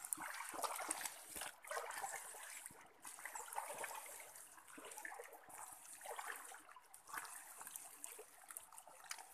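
Hands digging and scooping through wet mud and shallow water: irregular squelches, slaps and splashes.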